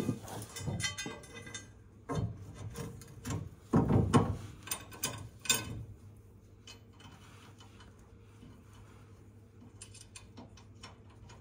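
Hand ratchet wrench clicking, along with knocks and clanks of steel parts being handled; the louder knocks come in the first half, and a quick run of ratchet clicks starts near the end.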